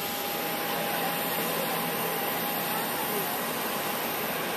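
Jet airliner engines on a runway: a steady rushing noise with a thin, steady whine running through it.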